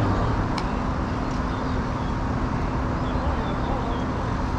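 Steady outdoor background rumble and hiss, like road traffic, with a low hum that fades out in the first half second and a single faint click about half a second in.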